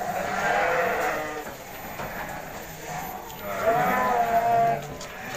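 Sheep bleating in a pen: two long, wavering bleats, one at the start and another about three and a half seconds in.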